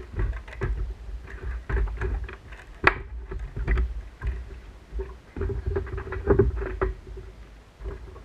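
Irregular knocks and clicks on a fishing kayak, over a steady low rumble, with water patter. The knocks are loudest about three seconds in and again between five and seven seconds.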